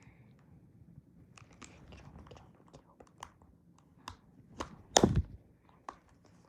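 Clicks and light taps of a mobile phone and its parts being handled and prised at, with a louder double knock about five seconds in.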